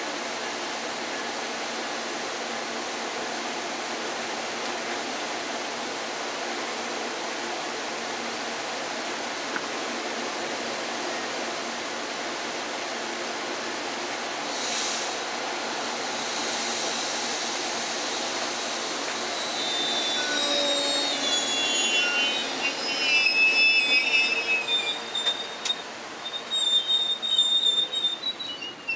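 Amtrak Superliner bi-level passenger car alongside the track: a steady hiss while it stands, then about twenty seconds in it starts rolling and its wheels squeal in high, shifting tones, loudest near the end.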